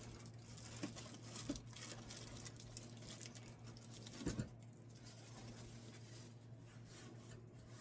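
Faint handling of a boxed 3D printer and its packaging: light rustles and soft knocks, with a stronger knock about four seconds in, over a steady low hum.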